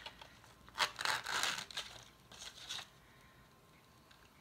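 Thin paper and ribbon rustling and scraping as a ribbon is drawn on a needle through the top of a paper box, with a sharp tick just under a second in and rustling that dies down about halfway through.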